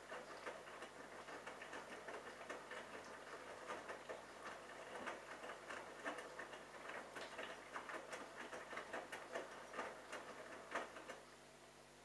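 Bosch Logixx washing machine's drum turning during the wash: wet laundry tumbling, with a dense, irregular patter of small clicks and swishes. It stops about eleven seconds in as the drum pauses.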